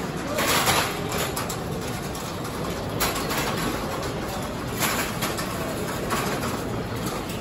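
Bus terminal ambience: a steady background rumble with four brief hissing swells over it, the strongest about half a second in.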